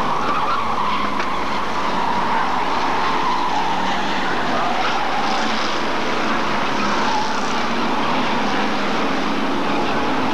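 A pack of Hot Stox stock cars racing, their engines running hard together in a steady, loud din with one engine note wavering and slowly falling.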